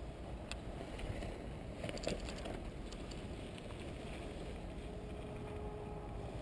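Steady low rumble of outdoor background noise on the camera's microphone, with a short patch of clicks about two seconds in.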